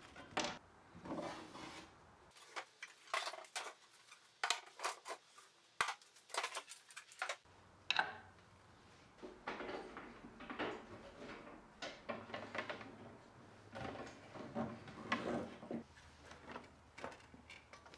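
Plated metal drawer pulls, screws and a screwdriver clinking, knocking and scraping as they are handled and set down on wood: many irregular sharp clicks and clatters.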